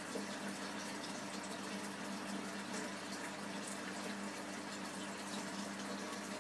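Aquarium water bubbling steadily from an airstone, with an aquarium pump's steady low hum underneath.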